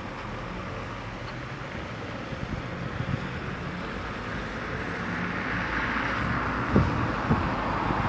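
Street traffic on a snow-covered road: car engines and tyres running through snow, with one vehicle passing that swells about five to six seconds in. Near the end, a few short gusts of wind bump the microphone.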